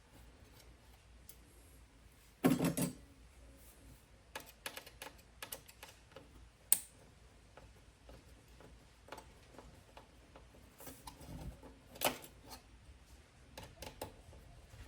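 Small clicks and taps of hand tools working the screws out of a car radio unit, with a short louder clatter about two and a half seconds in and sharp single clicks near seven and twelve seconds.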